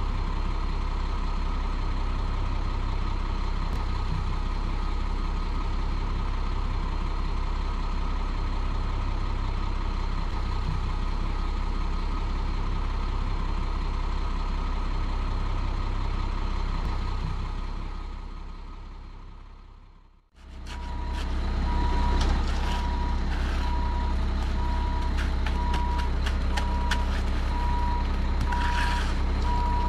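Concrete mixer truck's diesel engine running steadily while it pours, fading out about two-thirds of the way through. It comes back louder with a backup alarm beeping in an even repeating pattern, along with scraping and clicking of a shovel working wet concrete in the footing forms.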